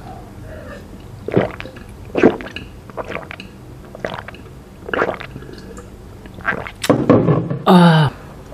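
A person gulping juice from a glass jar, swallowing about once a second. A short voiced 'ahh' with a slightly falling pitch follows near the end.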